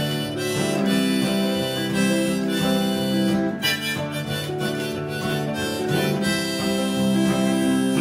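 Electric guitar and acoustic guitar playing an instrumental passage together, sustained notes ringing over the acoustic's chords, with no singing.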